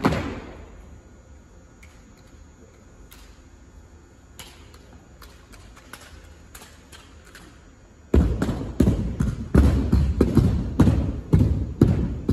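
Armed drill team handling drill rifles: scattered sharp clicks and knocks of rifle handling for about eight seconds, then a fast run of loud thumps and slaps, several a second, as the rifles are worked against hands and the wooden gym floor.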